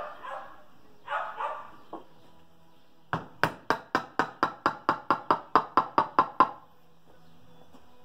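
A wooden mallet handle taps about fourteen times, about four a second, on a piston crown, driving the piston and its rings through a ring compressor into a VW air-cooled cylinder barrel; each tap has a slight metallic ring. A dog barks a few times in the first two seconds.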